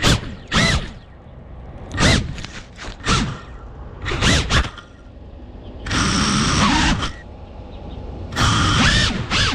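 FPV racing quadcopter's brushless motors spinning up in short bursts, each rising and falling in pitch, the propellers thrashing through leaves and grass, as the crashed drone flips itself back upright. The last two bursts run longer.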